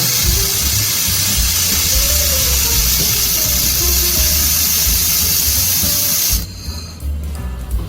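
Steady hiss of a handheld fiber laser welder running a double-wire weld, cutting off suddenly about six seconds in. Background music with a bass line plays throughout.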